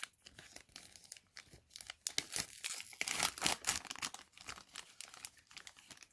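Plastic wrapper around a giant baseball card being torn open and crinkled: a run of short, irregular crackles that is busiest in the middle.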